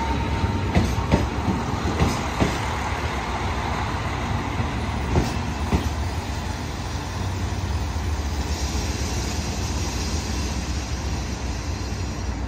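KiHa 185 series diesel railcars rolling slowly into the station, the wheels clacking over rail joints in pairs that come further apart as the train slows, under a steady low diesel rumble. The clacks stop about six seconds in, leaving the even rumble of the train.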